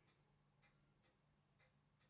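Near silence: a low steady hum with a few faint, light clicks.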